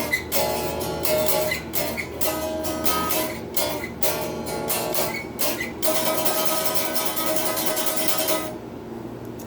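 Donner DST-80 Strat-style electric guitar strummed with its volume knob rolled fully off, so the unamplified strings are heard. A quick run of strummed chords, then one chord left to ring from about six seconds in until it is cut off near the end.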